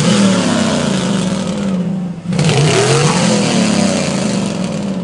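Car engine revved hard through a side-exit exhaust that is shooting flames, in two long surges with a brief cut about two seconds in.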